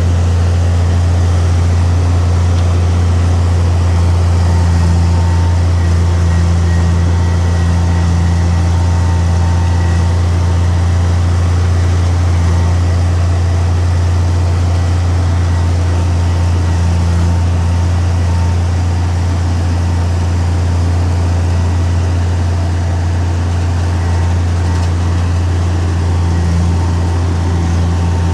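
Heavy diesel engine of earthmoving equipment running at a steady speed: a loud, constant deep drone with no revving.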